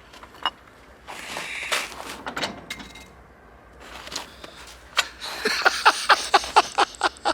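Metal clanks and knocks of a jack worked against a Reese trailer coupler lock, ending in a quick series of sharp metallic clicks, about five a second.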